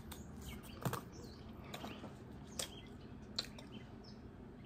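Quiet eating sounds close to the microphone: about four soft mouth clicks and smacks, roughly a second apart, from chewing and finger-licking, over a low room hum.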